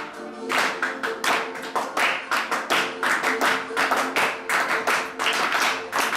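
Fast, slightly uneven rhythmic percussive strikes, about three to four a second, over steady held notes from a melodic instrument: live folk music with a hard-struck beat.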